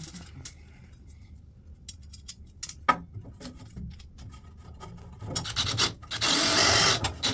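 A few small clicks and knocks of handling, then about five seconds in a DeWalt cordless drill with a nut driver runs for about two seconds, driving a screw through a steel joist-repair strap into the wooden joist. The driving is the loudest sound, steadiest near the end.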